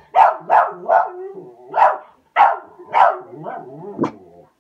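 A dog barking repeatedly, about seven sharp barks in four seconds, stopping about four seconds in.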